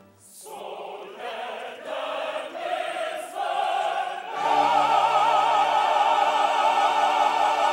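Opera chorus singing with an orchestra, the voices climbing note by note and then, about four seconds in, swelling into a loud held chord with vibrato.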